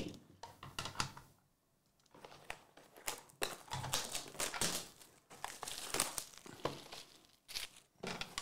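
Plastic wrap on sealed trading-card hobby boxes crinkling and crackling in irregular bursts as hands handle the boxes, with a short pause about a second and a half in.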